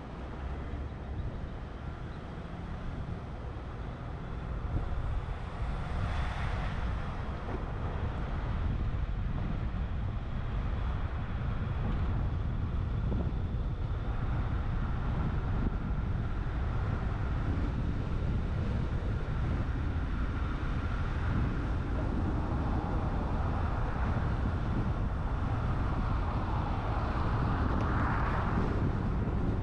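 Wind rushing over a roof-mounted action camera on a moving truck, with low road and engine noise. A louder swell comes about six seconds in and again near the end.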